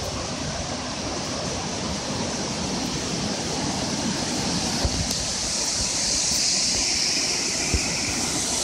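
Steady rushing of Burgess Falls, a large waterfall, growing a little louder over the second half, with a brief knock near the end.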